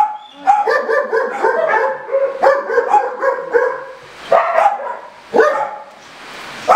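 Dogs barking and yipping in a string of short calls, several in quick succession with brief pauses between runs.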